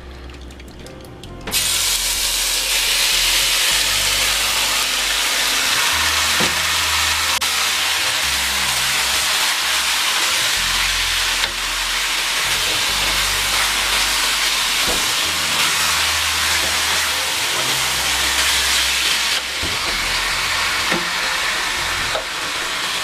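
Teriyaki-marinated chicken pieces dropped into hot oil in a stainless pot, setting off a sudden loud sizzle about a second and a half in. The steady frying hiss keeps up as the pieces are stirred with a wooden spatula.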